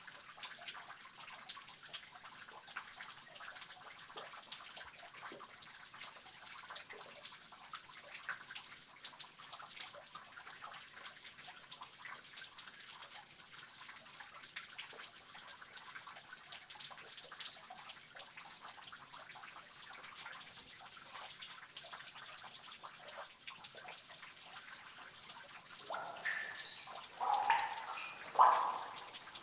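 Water dripping and trickling in a cave: a constant patter of small drops over a faint running-water hiss, with a few louder, pitched drops near the end.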